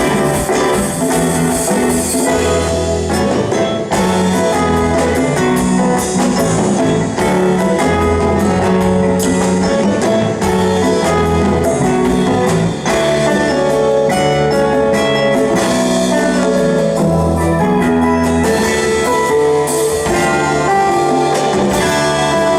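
A band playing music live, with a steady beat of short drum strokes under a bass line and held melody notes.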